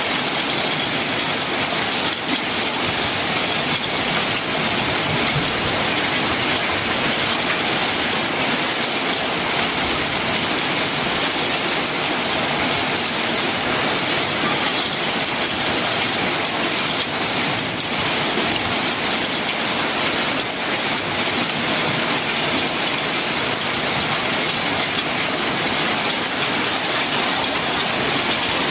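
Very heavy rain falling on a corrugated metal roof, with water streaming off the roof edge: a steady, even hiss.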